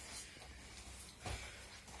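Faint room sound with one soft, low thump about a second and a quarter in.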